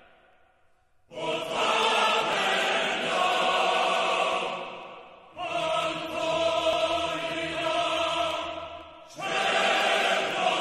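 Choral music: a choir holding sustained chords in three phrases, each coming in suddenly and fading away, about a second, five seconds and nine seconds in, with a low drone under the middle one.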